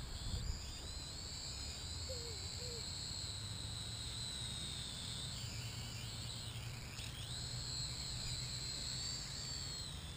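Propel Cloud Rider quadcopter drone's motors and propellers whining high and steadily, the pitch sagging and rising again midway as the throttle changes, over a low rumble.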